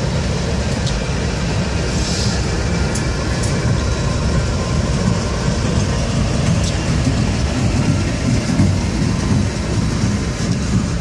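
A lashup of Norfolk Southern GE C40-9W diesel-electric locomotives passing close by at speed: a steady, heavy low rumble of engines and wheels, with a few sharp clicks of wheels over the rail.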